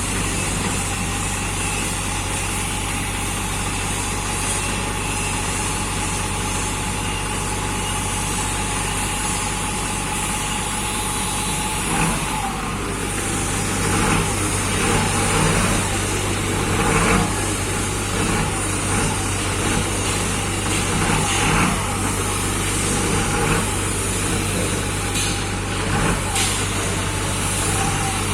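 Loader engine running steadily at first, then a string of louder, irregular surges and knocks from about halfway through, as the machine works.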